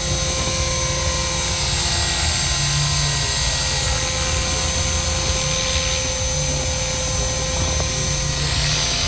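Tarot 450 V2 flybarless electric RC helicopter in flight, its brushless motor and spinning rotor blades making a steady whine with a low rumble beneath.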